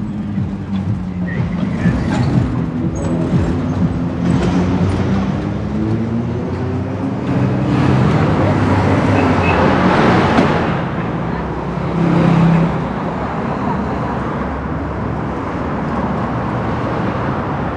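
City street traffic: car and bus engines running and passing close by, with one vehicle swelling past about eight to ten seconds in.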